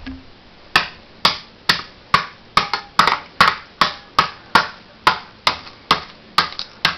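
A knife knocking again and again on a microwave-burnt burrito that has gone hard as a rock: sharp, hard knocks about two a second, starting about a second in.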